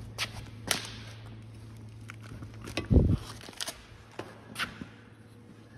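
Sharp metal clicks and knocks from handling a steel truck deck's latch and mesh frame, with one heavier thud about three seconds in, over a steady low hum.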